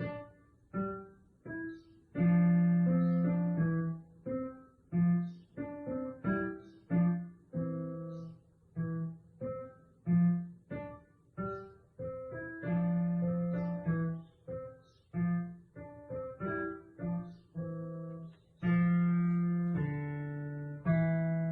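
Instrumental background music: a melody of single plucked or struck notes, piano or guitar, each ringing and dying away, with a few longer held notes.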